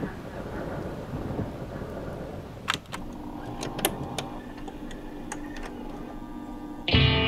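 Film soundtrack: a low rumbling ambience with a few scattered clicks and a faint steady hum, then rock music with guitar starts abruptly near the end, louder than everything before it.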